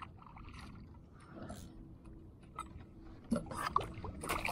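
Water lapping and sloshing against a kayak's side, with small knocks and clicks. Near the end come louder splashes and knocks as a hooked fish is drawn to the surface and into a landing net.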